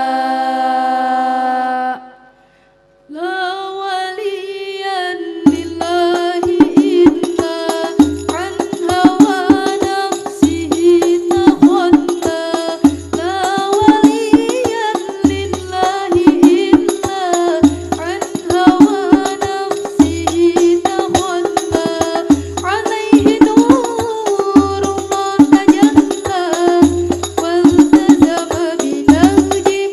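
Al-Banjari sholawat: voices singing a held melody, a brief pause about two seconds in, then rebana frame drums come in with a fast, dense rhythm. A deep bass drum stroke falls about every two and a half seconds under the singing.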